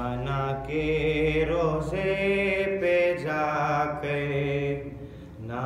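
A man's voice chanting a Shia mourning lament (marsiya), holding long, wavering sung notes without clear words, with a short breath break about five seconds in.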